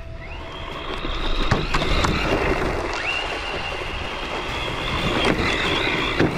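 Electric motor of a 1/8-scale RC rally car (Carisma M48S Audi Sport Quattro S1) whining under throttle. Its pitch climbs near the start and again about three seconds in, over the hiss of tyres on loose dirt, with a few sharp knocks along the way.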